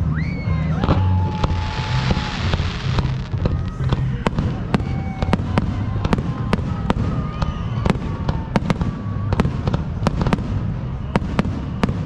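Holiday fireworks display: a hissing rise about a second in, then a fast string of sharp bangs and crackles. Music with a heavy bass beat plays underneath.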